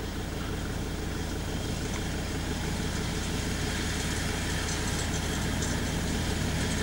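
Tractor running steadily while pulling a trailed mower through standing grass, the engine and mower drone slowly getting louder as the machine approaches.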